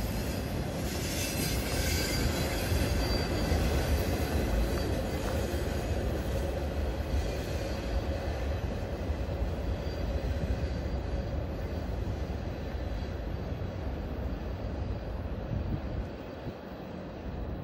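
Tail end of a freight train's autorack cars rolling past on jointed rail: steady wheel-on-rail rumble with a thin, high wheel squeal in the first couple of seconds. The rumble drops off near the end as the last car moves away.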